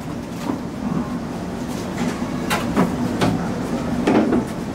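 Steady kitchen background rumble with a constant low hum, broken by a few sharp knocks and clatters.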